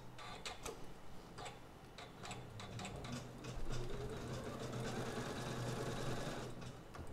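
Janome Skyline S9 sewing machine stitching out an embroidery design: a steady motor hum with a run of sharp needle clicks, swelling to a louder whir in the middle.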